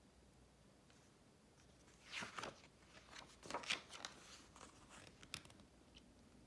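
Pages of a children's picture book being turned: soft paper rustles and crinkles about two seconds in and again a second later, then a few lighter handling ticks.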